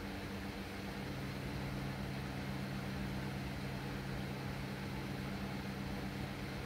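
Steady low machine hum with a faint hiss. A lower tone joins it about a second in and drops away near the end.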